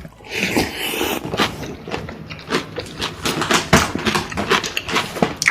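Close-miked crunchy chewing: a longer crunch in the first second, then a dense run of short crunches and wet clicks.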